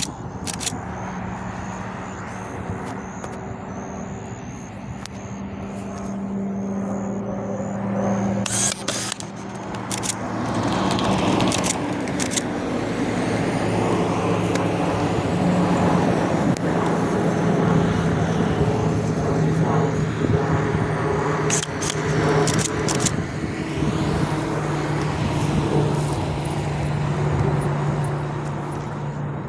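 Pilatus PC-21 turboprop in the circuit, its propeller making a steady low drone that grows louder from about a third of the way in and sinks slowly in pitch as it passes. A few sharp clicks come through over it.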